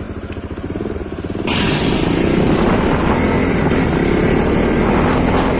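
Motorcycle engine idling with an even pulsing beat. About a second and a half in, the sound jumps to riding: the engine running under a loud rush of wind over the microphone.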